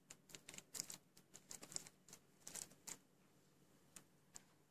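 Faint, quick irregular clicking, several small clicks a second, thinning to a few scattered ones after about three seconds.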